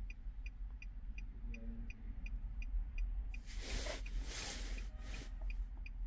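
Rapid electronic beeping: a steady run of short, high pips at about four a second, fading after about three seconds. Two brief rustles come through in the second half.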